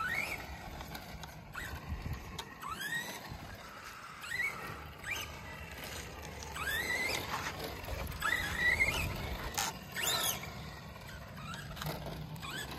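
R/C dirt modified car being driven on concrete: its motor whines up in pitch in short bursts, about ten times, as the throttle is blipped.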